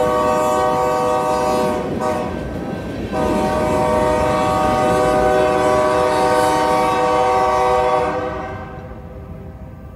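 Freight locomotive air horn sounding from down the line: a long blast, a brief break about two seconds in, then a second long blast that fades away after about eight seconds. Under it, the rumble and clack of the last tank cars rolling past.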